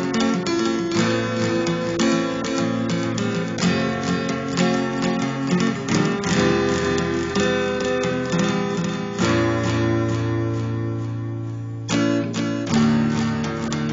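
Acoustic guitar music, strummed and plucked chords. One chord rings on for a few seconds before a fresh strum about 12 seconds in.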